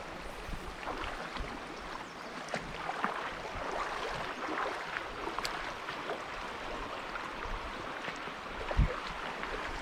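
Fast, high river water rushing steadily, with a few faint clicks and a brief low thump near the end.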